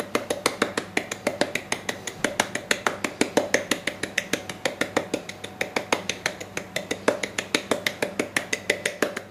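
A small metal cocoa shaker being shaken and tapped rapidly over muffins to dust them with cocoa powder. It gives a quick, even metallic clicking, about seven clicks a second, that stops abruptly near the end.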